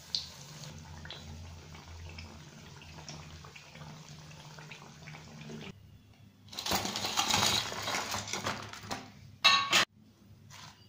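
Bondas sizzling in hot oil with small ticks of a wire spider strainer, over a low steady hum. After a short gap, a louder stretch of rustling and clatter as the fried bondas are handled on a steel plate and banana leaf, ending in one sharp clatter shortly before the end.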